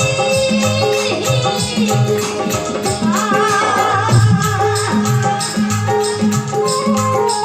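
Indian folk devotional music: a steady hand-drum beat with rattling percussion under an instrumental melody.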